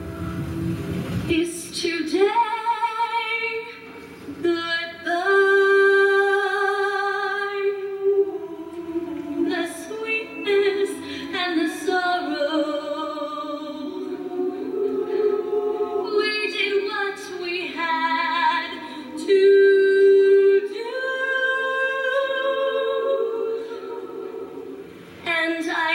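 Female soloist singing into a microphone in long held notes with vibrato, a women's choir singing along behind her.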